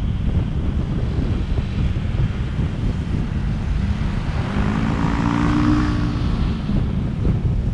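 Steady wind buffeting and road rumble from a moving car. About five seconds in, another vehicle passes and its engine is briefly heard as a hum.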